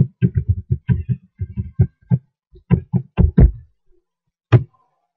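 Computer keyboard typing: a quick run of key presses, about six a second, that stops after about three and a half seconds, followed by one last keystroke a second later.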